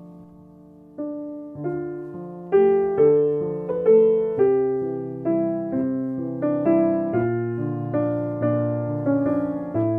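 Slow solo piano music: single notes and chords struck one after another, each fading away, resuming after a short lull about a second in.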